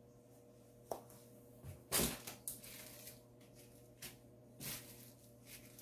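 Small plastic zip bags of diamond painting drills being set down one by one on a cloth-covered table: a few soft taps and crinkles, the loudest about two seconds in. A faint steady hum runs underneath.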